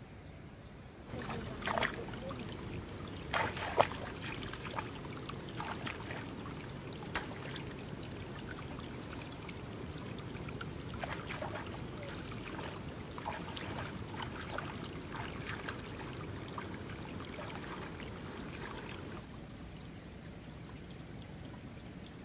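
Water splashing and trickling, with many irregular sharper splashes. It starts abruptly about a second in and cuts off shortly before the end.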